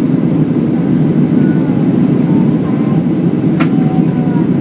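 Steady engine and airflow roar inside the passenger cabin of an Airbus A319 airliner climbing after take-off, with a single brief click about three and a half seconds in.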